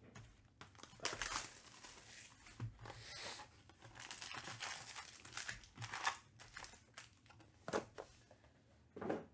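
Trading-card pack wrappers being torn open and crinkled in hand, in irregular bursts of rustling and crackling.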